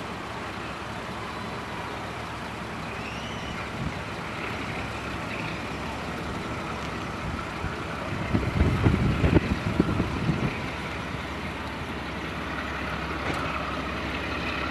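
Diesel locomotive drawing a passenger train slowly toward the listener, its engine running steadily. About eight seconds in comes a couple of seconds of loud, uneven low rumbling.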